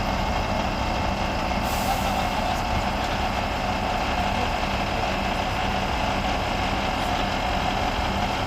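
A heavy vehicle's engine running steadily, a constant low hum under a loud even mechanical noise.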